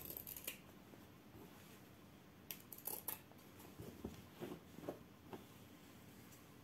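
Scissors snipping through fabric and batting, trimming the corners of a sewn cushion square: a few quick snips at the start and another cluster about two and a half to three seconds in. Soft fabric rustling follows as the piece is handled.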